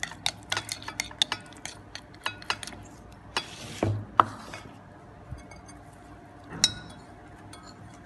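Fork clinking and scraping against a ceramic bowl while shredded chicken is stirred into sauce: a quick run of clicks in the first three seconds, a short scrape a little before the middle, then a few scattered clinks.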